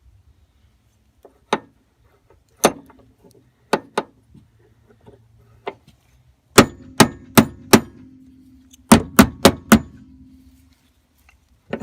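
Hammer blows on the steel door hinge pin of a 2003 Chevy Silverado, trying to drive out a stuck original pin. A few single hits come first, then two quick runs of four blows at about three a second, each with a short metallic ring.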